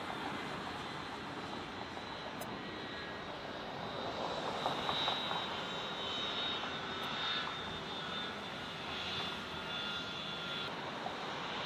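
Airliner jet engines running: a steady rush of engine noise, with high whining tones coming in about four seconds in.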